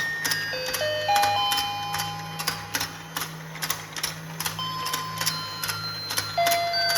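Battery-powered fishing game toy running: its motor hums and its gears click steadily while it plays a simple beeping electronic tune, one plain note at a time.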